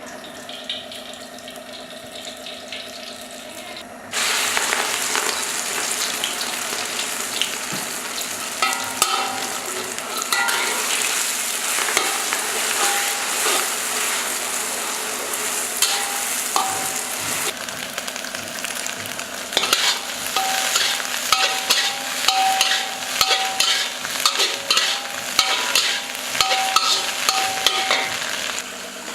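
Oil sizzling quietly in a pan, then about four seconds in food goes into the hot oil and the sizzle jumps loud. It is stir-fried with a spatula scraping and clattering against the pan, more choppily near the end.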